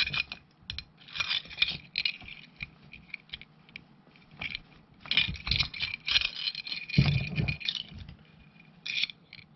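A metal portable door lock being handled: its small metal parts clink, rattle and scrape in bursts, with a dull knock about seven seconds in.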